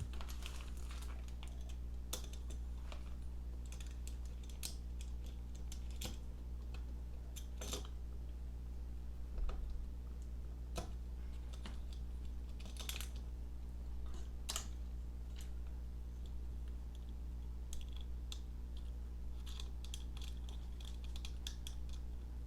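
Scattered light clicks and taps as a flashlight's rail mount is handled and fitted onto an AR-15's Picatinny rail, over a steady low hum.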